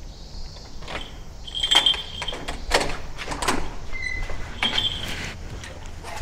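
A bunch of keys jangling as a key is put into a door's cylinder lock and turned, with a series of metallic clicks and rattles, then the door being opened.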